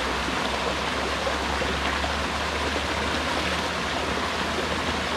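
Steady rush of water from a small rocky creek and its little waterfall.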